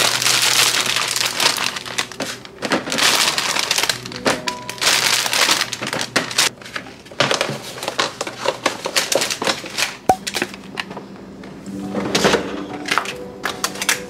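A plastic produce bag of mini sweet peppers crinkling and rustling in several spells as it is handled and the peppers are packed into a plastic storage container. Soft background music plays underneath.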